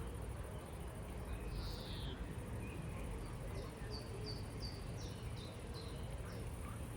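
A small songbird singing over a low steady outdoor rumble: one high note sliding downward about a second and a half in, then a quick run of about nine short high notes near the middle.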